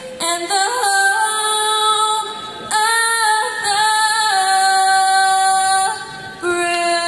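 A female voice singing the national anthem a cappella in slow, sustained phrases, with a brief breath between phrases and a long held note starting near the end.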